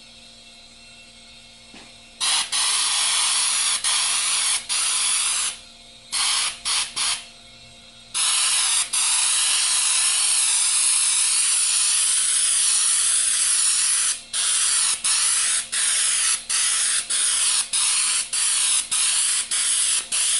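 Airbrush spraying black paint through a homemade nozzle cap of fiber screen over a cut caulking-tube end, spattering a speckled stone effect. The hiss of air starts about two seconds in, comes in a few short bursts, runs steadily for several seconds, then breaks into quick short bursts close to two a second as the trigger is let off and pressed again.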